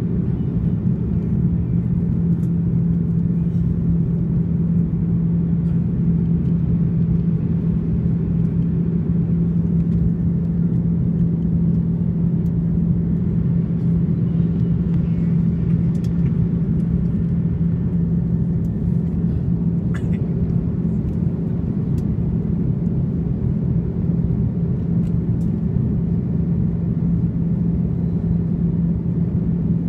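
Airbus A330-300 jet engines (General Electric CF6-80E1) heard from inside the cabin during the climb after take-off: a loud, steady drone with a constant low hum over a deep rumble.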